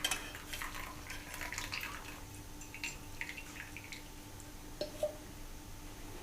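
Hot herbal kadha being poured from the pan through a strainer into a cup: faint trickling and dripping, with two light clinks about five seconds in.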